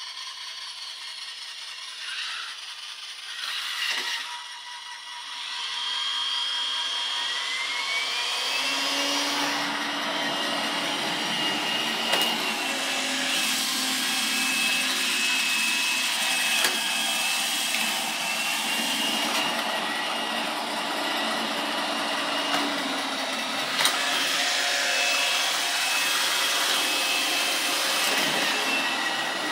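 iRobot Roomba 705 robot vacuum running, its suction fan speeding up about six seconds in with a rising whine that then holds steady, joined by a lower hum. The hum is likely the brushes working.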